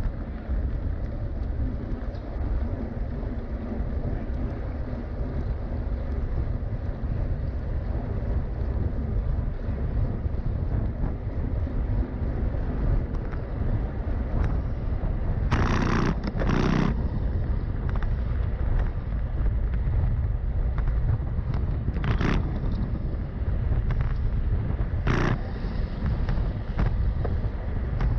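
Steady wind rumble buffeting the microphone, broken by four short, louder bursts: two close together a little past halfway, then two more spaced a few seconds apart near the end.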